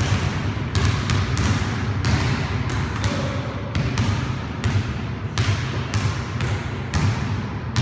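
Basketballs bouncing on a hard gym floor: irregular dribbles, roughly two a second, each bounce echoing briefly in the hall.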